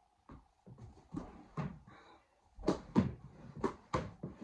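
A series of about nine sharp plastic knocks and taps from a home hockey game, hockey sticks striking a puck or ball and the floor, coming faster in the second half.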